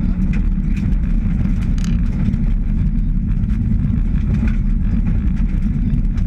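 Mitsubishi Lancer Evolution VI rally car heard from inside the cabin at speed on gravel: its turbocharged 2.0-litre four-cylinder engine running steadily, mixed with tyre and gravel noise, with a few faint ticks of stones.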